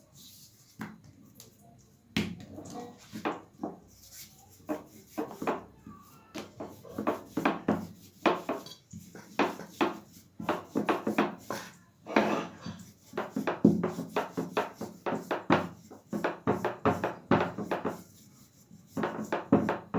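Rolling pin rolling out a ball of paratha dough: a run of short knocks and rubbing strokes, sparse at first and quick and dense through the middle, stopping briefly near the end.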